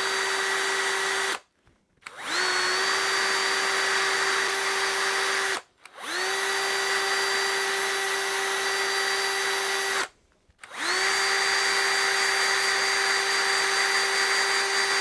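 Electric drill running at full speed in long runs of three to five seconds, stopping and spinning back up three times, each start beginning with a brief rising whine before a steady high hum.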